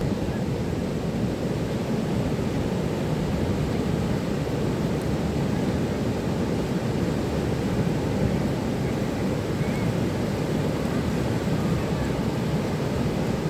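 Ocean surf breaking on a beach, heard as a steady low rumble.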